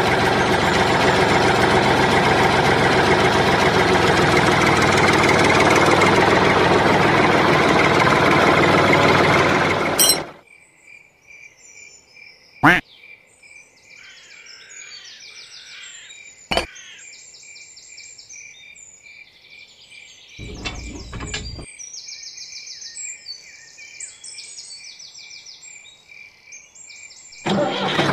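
Steady engine noise of a DIY mini toy tractor running for about ten seconds, cutting off sharply. Then birds chirp, one with a steady repeating call, with two sharp clicks and a short dull noise while a small metal hitch pin is fitted. The engine noise starts again just before the end.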